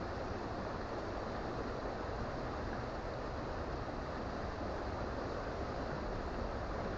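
Creek water flowing steadily over stones, an even rushing babble with no breaks.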